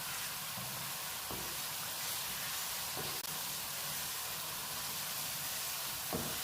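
Chicken in a cream sauce sizzling in a pan over high heat, a steady hiss. A few faint knocks of a spoon stirring it come about a second in, midway and near the end.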